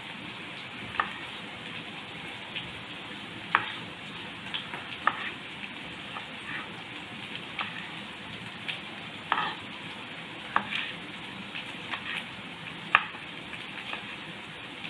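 Kitchen knife cutting tomatoes into wedges over a wooden chopping board, giving irregular sharp taps against a steady frying sizzle.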